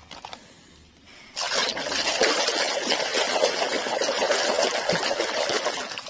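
Muddy water splashing and sloshing in a bucket as a plastic toy truck is swished and scrubbed in it by hand, starting about a second and a half in after a quiet start.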